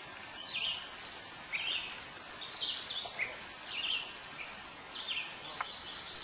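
Songbirds singing from the shoreline woods: short, high, downward-stepping phrases repeated about once a second, over a steady background hiss.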